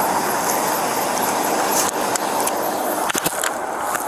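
Steady rushing noise on a body-worn camera's microphone, with a few sharp knocks and rustles about three seconds in as the camera rubs against clothing, briefly muffling the sound.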